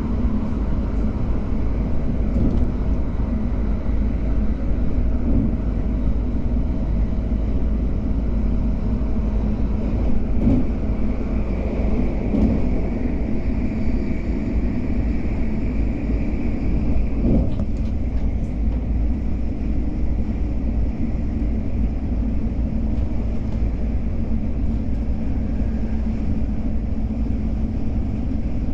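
Cabin noise of an MTR Airport Express CAF electric train running at speed: a steady rumble of wheels on track. A faint higher whine rises in the middle, and there is a brief knock a little later.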